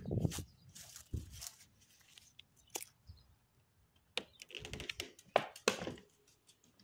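Footsteps crunching on dry grass while a phone is handled, then a run of clicks and knocks about four seconds in.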